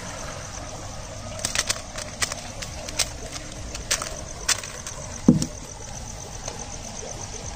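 Steady night-insect chirring, with a scatter of sharp clicks and taps as the caught prawns and fish are handled, and one short low sound falling in pitch about five seconds in.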